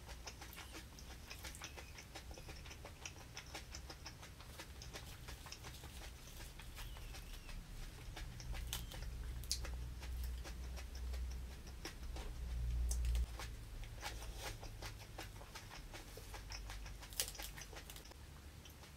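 Fresh herb leaves being torn, crinkled and rolled by hand, many small crisp crackles and snaps, with some close chewing. A low rumble swells about halfway through and cuts off suddenly a little later.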